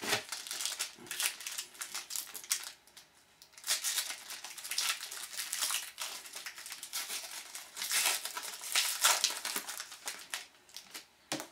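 Crinkling of a foil trading-card pack wrapper as a pack of hockey cards is opened, with the cards rustling in hand. It comes in crackly spells with short lulls between them.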